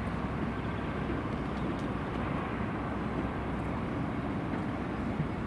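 Steady low rumble of outdoor background noise, with no single sound standing out.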